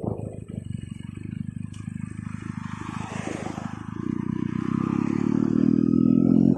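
Benelli TNT 300 parallel-twin engine running through a freshly fitted aftermarket exhaust, building louder over the last couple of seconds and then dropping off abruptly.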